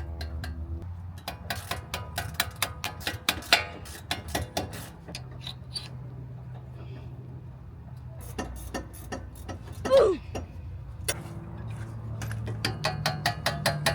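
Hammer tapping on a screw used as a drift to drive out a stuck brake pad retaining pin, in runs of quick metallic strikes a few a second. A short squeak that slides in pitch stands out about ten seconds in.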